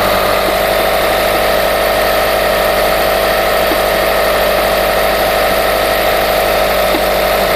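Subaru Forester's flat-four boxer engine idling steadily while cold, with a knock from the timing-belt area that appeared after the belt and idler rollers were replaced.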